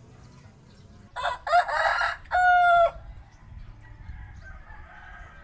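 A rooster crowing once, loud, starting about a second in and ending on a long held note, followed by a fainter call near the end.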